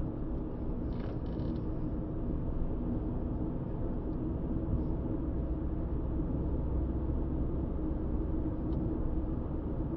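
Steady low rumble of a car driving at road speed, engine and tyre noise heard inside the cabin, with a few faint ticks or creaks from the interior about a second in and near the end.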